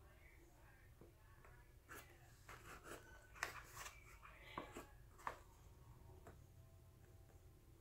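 Paper flour bag crinkling and rustling faintly as it is tipped and squeezed to pour flour, with a few sharper crackles around the middle.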